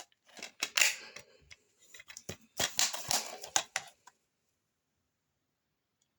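Plastic DVD case being handled: rustling with several sharp clicks, stopping about four seconds in.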